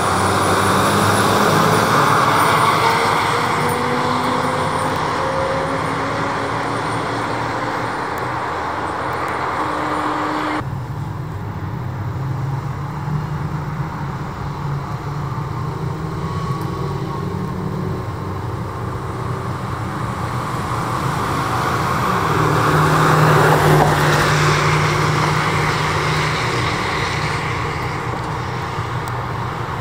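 Emergency vehicles' engines and tyre noise as they drive past, the engine note rising as one accelerates. The sound changes abruptly about ten seconds in, then another vehicle swells past, loudest a little after twenty seconds in.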